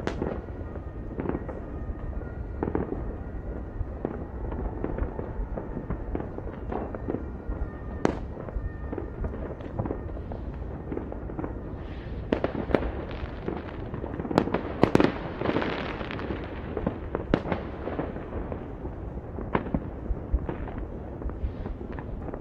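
Fireworks and firecrackers going off all over a city: a continuous scatter of cracks, pops and bangs over a steady rumble, thickest in a dense run of cracks about two-thirds of the way through.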